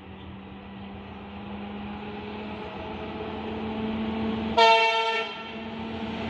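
Diesel locomotive approaching at speed, its engine hum and the train's rumble growing steadily louder, with one short blast of the horn about four and a half seconds in.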